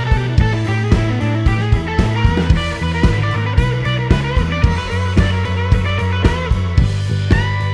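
Background music: electric guitar melody over a rock drum kit with a steady beat.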